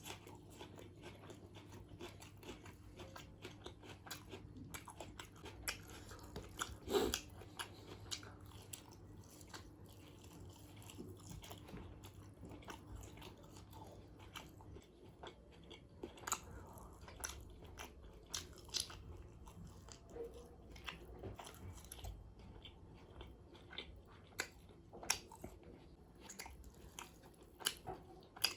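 Close-miked chewing and biting of chicken biryani: wet mouth clicks and occasional crunches, one louder crunch about seven seconds in. A low steady hum fades out about halfway.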